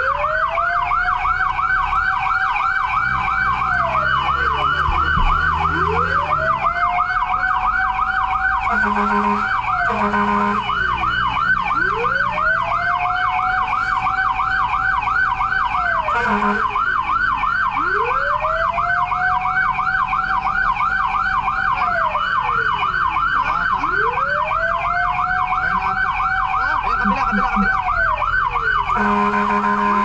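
Emergency sirens of a responding fire truck, heard from inside the cab. A rapid electronic yelp runs throughout, overlaid by a slower wail that rises, holds and falls about every six seconds. Short horn blasts come a few times, and a longer horn blast starts near the end.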